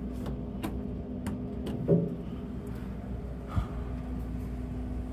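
Elevator car's two-speed Wittur doors closing after the LL floor button is pressed: a few light clicks, a loud clunk about two seconds in, and a sharp thump about three and a half seconds in as the doors shut, over a steady hum.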